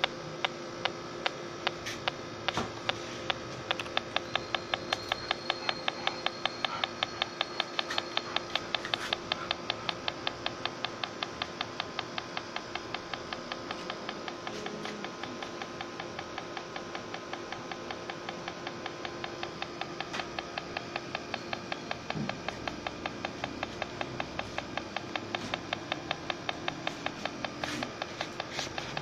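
Smart Sensor electronic refrigerant leak detector ticking from its speaker. The ticks are slow at first and quicken about three seconds in to roughly four or five a second. They ease slightly in the middle and speed up again near the end, the rate rising as the probe picks up refrigerant gas.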